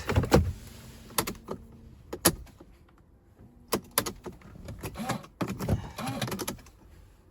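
Scattered sharp clicks and knocks as controls are worked in the cabin of a Mercedes-Benz C-Class W204. No starter cranking or engine running can be heard: the car still has a no-crank fault.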